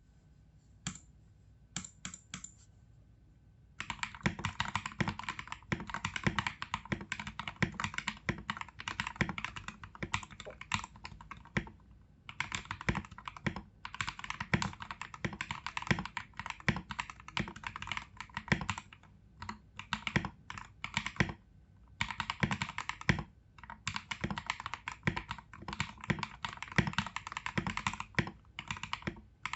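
Royal Kludge RK68 mechanical keyboard being typed on. It has lubed Akko CS Rose Red linear switches, lubed and clipped stabilisers, XDA-profile keycaps, and tape and foam mods. A few single keystrokes come first, then fast, continuous typing from about four seconds in, with a few short pauses.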